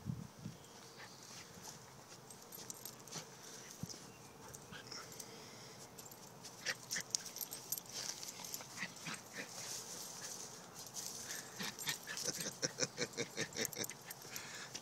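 Excited puppy making short yips and whines while playing, coming thick and fast near the end.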